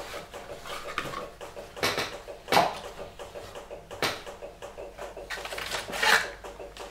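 A small cardboard mailer box being handled and opened: a few sharp cardboard knocks and scrapes, the loudest a little over halfway through, then paper rustling as sheets are pulled out of the box near the end.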